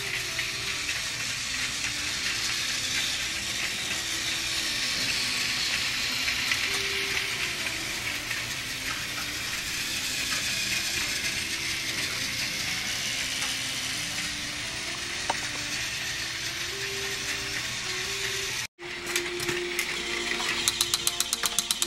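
A battery-powered toy train's small motor and gears whirring steadily as it runs along plastic track, with faint stepped low notes underneath. After a sudden break near the end comes a quick run of sharp clicks.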